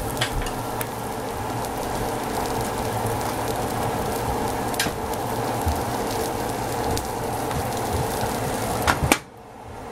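Omelette cooking in a nonstick omelette pan over a gas flame: a steady sizzle with a few light clicks. The sound drops away suddenly near the end.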